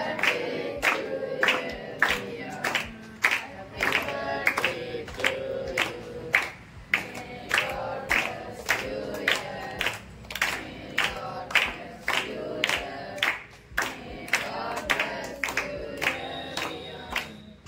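A group of voices singing together to steady rhythmic hand-clapping.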